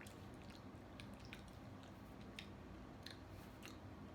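Faint chewing of sweet fried snack balls, with a few soft mouth clicks spread through.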